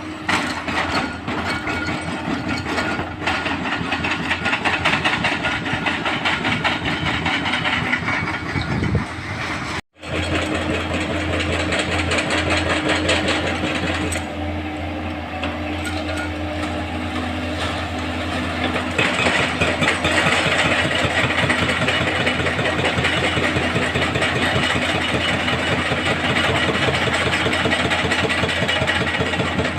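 Heavy diesel engines of excavators and a dump truck running steadily while working, with a brief break in the sound about ten seconds in.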